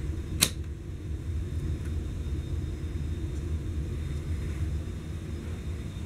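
Encon Monarch ceiling fan running with a steady low rumble. A single sharp click comes about half a second in.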